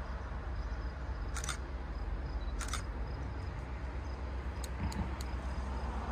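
Outdoor ambience at trackside: a steady low rumble, with five short sharp ticks scattered through it.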